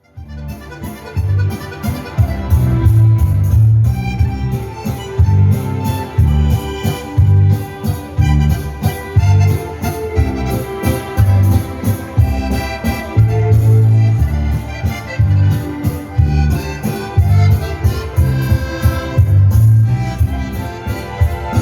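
Accordion playing a dance tune over a steady, regular bass beat.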